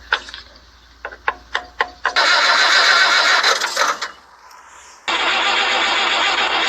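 A few sharp clicks, then the TD9 bulldozer's diesel engine being cranked over: one burst of about two seconds, a pause, then a longer run starting about five seconds in. The cranking comes just after the air was bled from the fuel filters, to draw fuel through to the injection pump.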